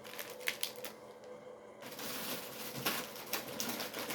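Scattered light clicks and taps with faint rustling as small items and packaging are handled and moved about.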